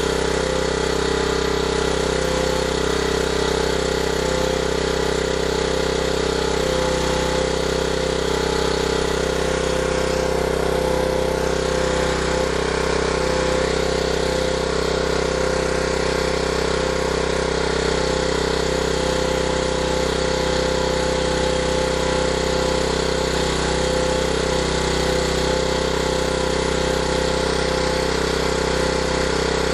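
Small portable generator's engine running steadily under a 500-watt halogen light load.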